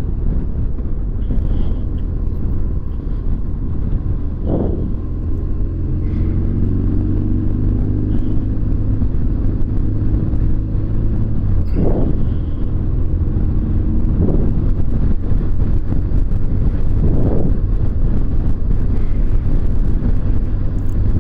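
BMW R1200GS flat-twin engine running steadily at low road speed, heard from the rider's own bike, with a few brief swells in pitch.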